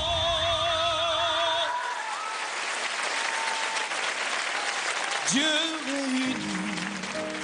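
A male singer holds a long high note with wide, even vibrato over the backing music, the note breaking off about two seconds in. Audience applause and cheering follow, and near the end a voice and the music pick up again under the applause.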